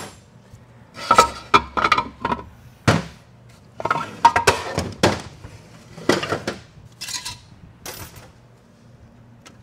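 Metal parts of a Ford 4R70W automatic transmission clinking and clanking as a clutch drum assembly is worked out of the case and set down on the workbench. A string of sharp knocks, some with a short ring, starts about a second in and dies away about eight seconds in.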